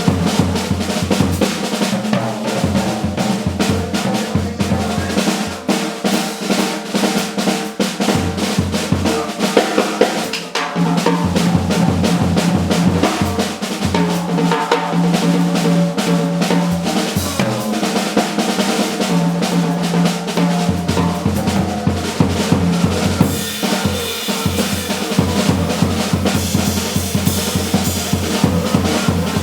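Live jazz combo playing, with the drum kit to the fore: rapid cymbal, snare and bass drum strokes over plucked bass notes.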